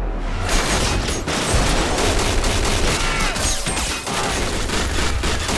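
Rapid automatic gunfire, many shots in quick succession, starting about half a second in and running in dense bursts.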